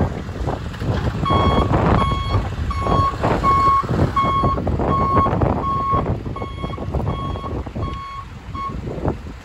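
A truck's reversing alarm beeping: about a dozen even, single-pitch beeps, a little under two a second, starting about a second in and stopping near the end.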